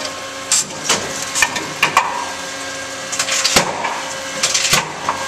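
Tomra T-53 reverse vending machine taking in a plastic bottle: the machine's motor and rollers run with a steady hum while the bottle knocks and clatters inside, with several sharp knocks.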